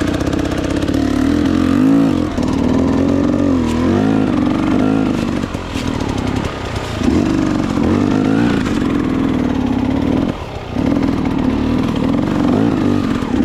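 Dirt bike engine revving as the rider rides, its pitch rising and falling again and again with the throttle, with a short let-off about ten seconds in.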